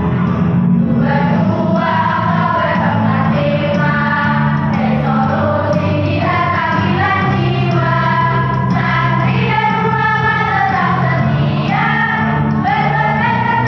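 School choir singing together over an instrumental accompaniment with a steady bass line.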